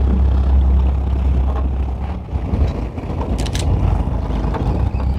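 Fishing boat's engine running with a steady low rumble, briefly lighter about two and a half seconds in, and a short sharp click about three and a half seconds in.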